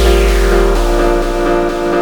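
Electronic background music: a deep bass note fading out under sustained synth chords, with a falling sweep across the highs.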